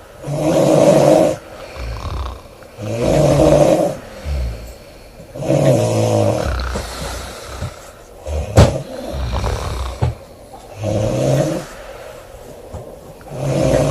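A woman snoring loudly, one rattling snore about every two to three seconds, with a sharp click about halfway through.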